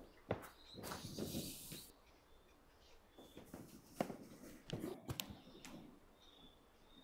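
Faint scattered knocks, clicks and scraping from hand-painting a galvanized-iron roof: footsteps on the sheet metal, and a paintbrush and metal paint pail being handled, with a sharp click about four seconds in.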